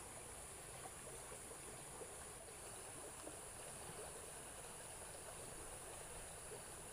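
Faint, steady rush of a small muddy stream flowing, with a steady high hiss above it.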